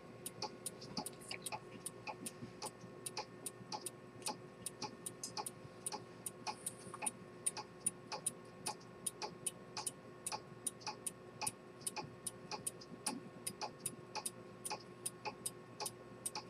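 Pocket chronometer with an Earnshaw-type detent escapement ticking steadily, even sharp ticks at about five a second, over a faint steady hum.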